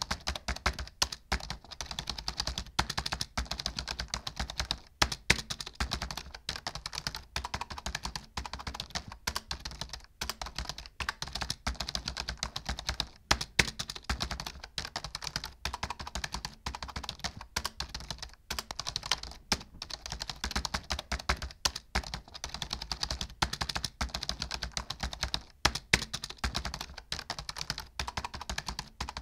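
Computer keyboard typing fast and without letup, a rapid run of key clicks with only brief pauses.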